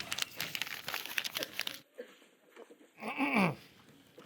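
Sheets of paper rustling and crinkling as they are handled, for about two seconds. After a short pause comes one brief vocal sound whose pitch rises and then falls.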